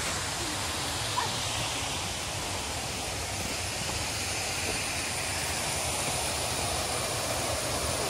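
Steady roar of a waterfall and river rushing over rocks, an even rushing sound that does not change.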